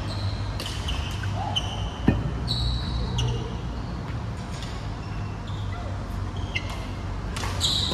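Badminton rally in a sports hall: shoe soles squeaking repeatedly on the wooden court as players move, with racket strikes on the shuttlecock, one sharp hit about two seconds in. A steady low hum runs underneath.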